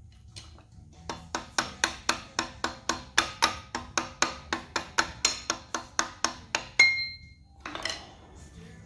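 Ratchet wrench clicking in a quick, even rhythm, about four clicks a second, as the camshaft gear bolt on a Hyundai 2.7L V6 is backed out. Near the end the clicking stops and a single metal clink rings briefly.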